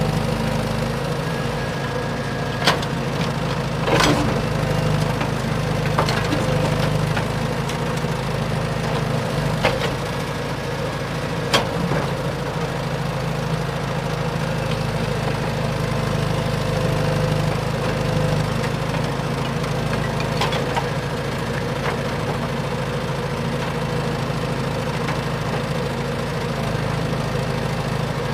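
Motors of a 14-channel RC model excavator running with a steady mechanical hum, with a few sharp clicks or knocks scattered through it.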